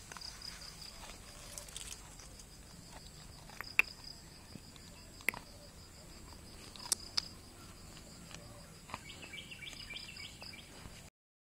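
A dog gnawing on a bone, its teeth cracking sharply against it several times, the sharpest about four seconds in, over steady insect chirping.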